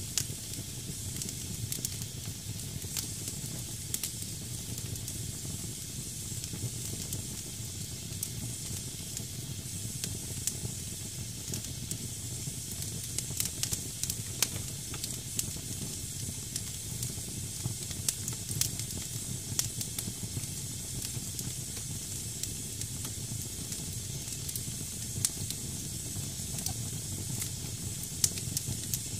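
Damp firewood burning in a fireplace: a steady hiss of moisture steaming out of the wood, with many small, irregular crackles and pops over a low rumble of flame.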